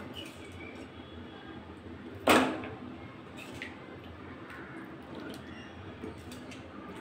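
A metal spoon scraping and knocking on a metal pan as curry is served onto a plate. One sharp clank with a short ring a little over two seconds in is the loudest sound, with lighter scrapes around it.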